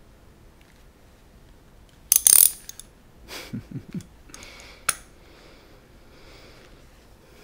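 Handling of a small hard object: a loud short scrape with a click about two seconds in, softer rustles, then one sharp click about five seconds in.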